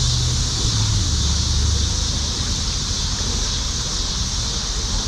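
Wind buffeting the microphone, an uneven low rumble, over a steady high hiss of outdoor background noise.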